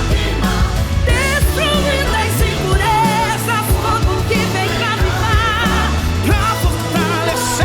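Pop song with a singer's voice wavering in vibrato over a steady bass line and drums.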